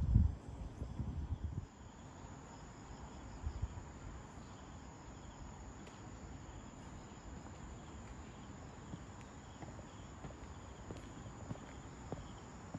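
Night insects trilling steadily in a high, thin, continuous tone. Low rumbling thumps from handling or wind on the microphone in the first two seconds.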